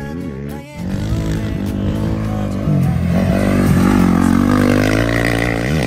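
Rally motorcycle engine running hard, coming in loud less than a second in; its pitch drops about three seconds in and then climbs again as the rider works the throttle, with another quick dip and rise near the end.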